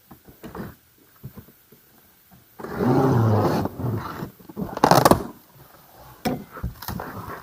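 Cardboard box and packaging being opened and handled: scattered light knocks, a long loud scraping rasp about a third of the way in, and a short, sharper, louder rip or scrape about two-thirds of the way through.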